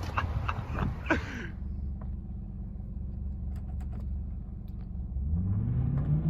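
Car engine idling steadily, with a few clicks near the start, then revving up in rising pitch about five seconds in.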